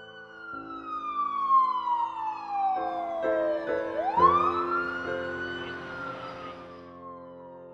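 Siren wailing: one tone falls slowly, swoops up sharply about four seconds in, then slowly falls again, over piano music.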